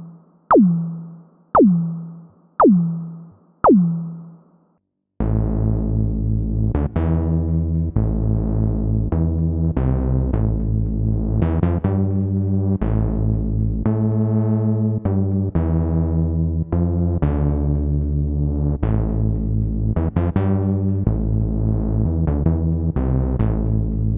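Roland PROMARS software synthesizer presets: five percussive notes about a second apart, each sweeping quickly down in pitch and dying away, then from about five seconds in a sustained chord patch playing a changing chord progression.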